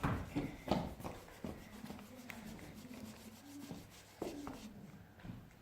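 Quiet handling noises: soft rubbing and rustling with a few light knocks and clicks.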